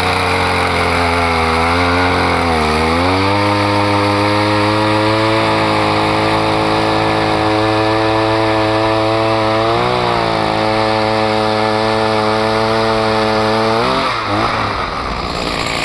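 Small two-stroke engine of a gas-powered ice auger running at high speed, its pitch sagging briefly three times as the auger bites under load.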